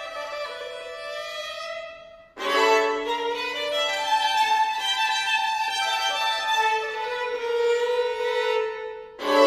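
Two violins playing a contemporary classical duo: held notes fade to a brief pause about two seconds in, then both come back in loudly with sustained notes and chords, with another strong accented attack near the end.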